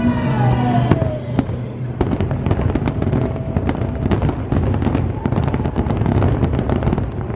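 Fireworks show: a dense run of bangs and crackling pops, several a second, over a low rumble of bursts.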